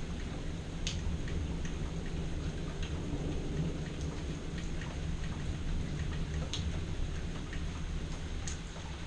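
Steady rain during a thunderstorm, with a low continuous rumble of thunder underneath and a few sharp ticks of drops hitting something close by.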